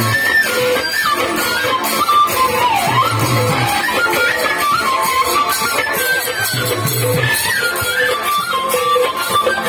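Music for a dance performance: a winding melody with clusters of low beats that come roughly every four seconds.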